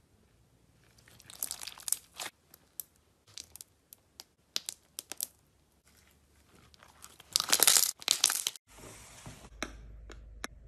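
Clear slime filled with small beads being stretched and pulled apart by hand: irregular bursts of crackling and popping, loudest about three-quarters of the way through, with scattered single pops between. Near the end this gives way to a steady soft hiss with a few sharp clicks.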